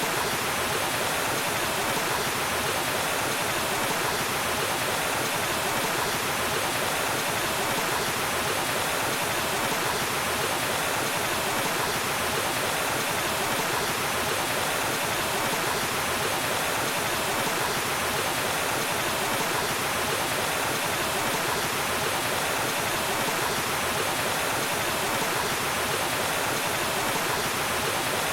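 Waterfall: falling water splashing and rushing in a steady, even roar with no breaks.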